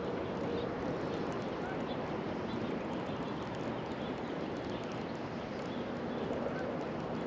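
Steady outdoor background noise by a river, with a few faint, short bird chirps.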